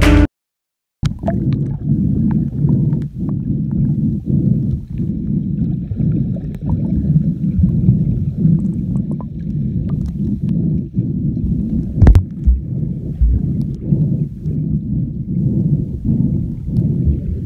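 Muffled underwater sound from a camera held under the sea: a steady low churning rumble of moving water, with scattered small clicks and knocks and a sharper knock about twelve seconds in. It begins after the background music stops at the start and a second of silence.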